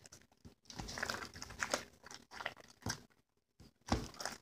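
Homemade glue slime being squished and kneaded by hand in a plastic tub: irregular wet squelches, with a short pause about three seconds in.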